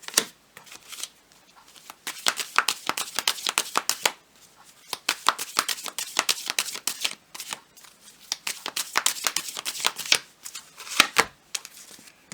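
A deck of tarot cards being shuffled by hand: runs of quick, crisp card clicks in several spells, with short pauses between them.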